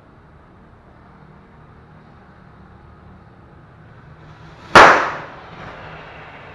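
A small firework rocket motor mounted on a homemade toy car ignites with a sudden loud bang near the end, then keeps hissing as it burns.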